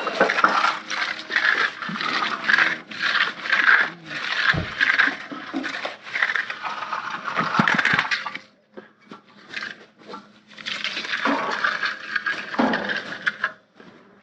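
Stiff concrete broom dragged across fresh concrete in repeated strokes for a broom finish, a scratchy scraping that pauses for about two seconds a little past the middle before starting again.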